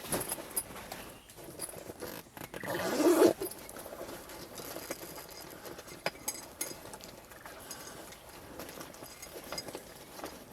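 Handling noise from camera gear being passed between hands: scattered light clicks and knocks, with a louder rustle about three seconds in.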